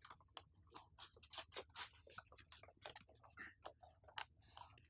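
Near silence: room tone with faint, irregular small clicks and ticks scattered throughout.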